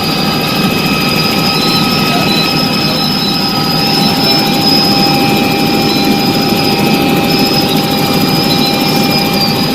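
Helicopter running in flight, heard from inside the cabin: a steady, loud rumble of engine and rotor noise with several steady whining tones over it.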